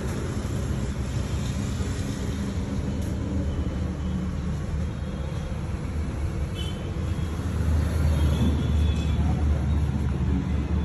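A steady low background rumble that grows somewhat louder in the last few seconds.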